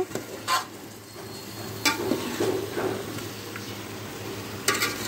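A metal spoon stirring cauliflower and potato pieces in a metal cooking pot, with a few separate scrapes against the pot and a sharper, ringing scrape near the end. Under it is a faint sizzle of the vegetables cooking in oil.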